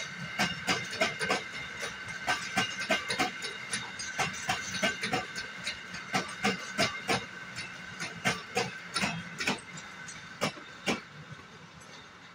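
Empty container flat wagons of a freight train rolling past, their wheels clacking over the rail joints in quick pairs and groups, with a steady high-pitched ring over the clacks. The clacks thin out and fade near the end as the last wagons and the brake van go by.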